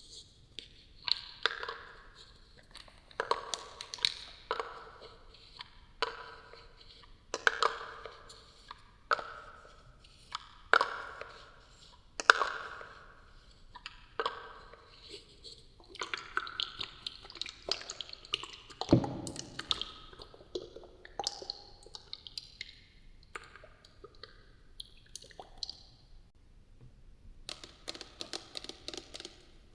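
ASMR tapping on a hard, resonant object, with echo effect added: a strike about every second, each ringing briefly at a few fixed pitches. A heavier, deeper knock comes about two-thirds of the way through.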